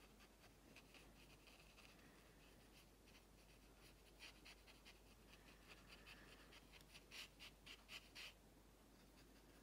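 Faint, quick strokes of a fine round paintbrush flicking across watercolour paper, a run of short scratchy touches that grow firmer about three-quarters of the way through.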